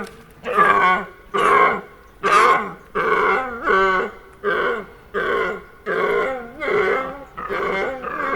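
Wildebeest giving a run of short nasal grunting calls, about a dozen of them, more than one a second.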